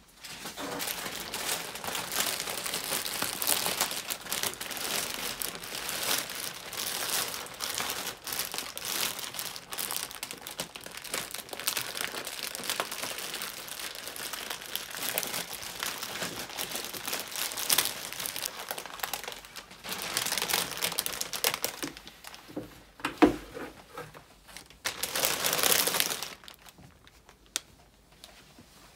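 Clear plastic plant sleeve crinkling and rustling as a potted peace lily is unwrapped. About 23 seconds in there is a single knock, then a last short burst of crinkling.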